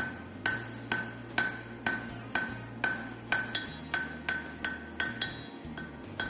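Hand hammer striking hot steel on an anvil, about two blows a second, each with a bright metallic ring, typical of forging a chisel blank.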